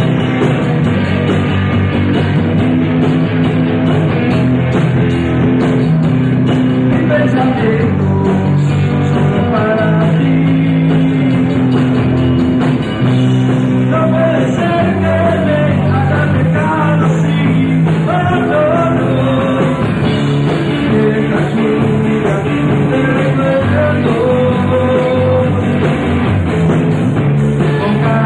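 A rock band playing live, with electric guitars, bass and drums, and a voice singing over them.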